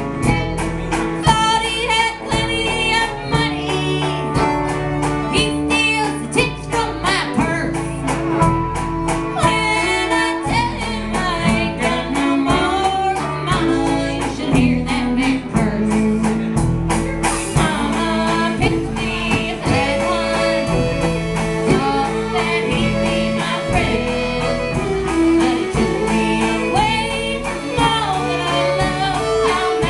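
A country band playing live: a woman singing lead over strummed acoustic guitar and upright bass. The sharp, regular rhythm strokes drop out a little past halfway through.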